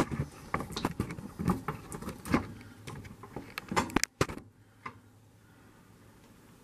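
Handling noise from a camera being moved and set in place inside a freezer cabinet: a quick run of knocks, clicks and scrapes against the cabinet and wire shelves. It stops about four and a half seconds in, leaving a faint steady low hum.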